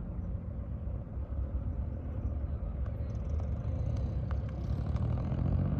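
A motor vehicle's engine running with a low rumble that grows louder near the end, with a few faint clicks.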